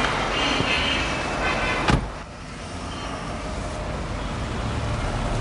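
A car door slams shut once, about two seconds in, over steady street traffic noise.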